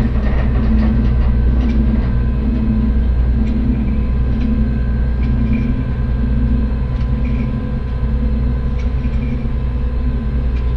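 Heavy vault door mechanism running: a steady, loud low mechanical rumble with a constant hum and a few faint clicks.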